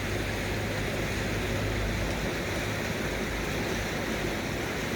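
Floodwater rushing in a swollen creek: a steady, unbroken roar of fast-flowing water.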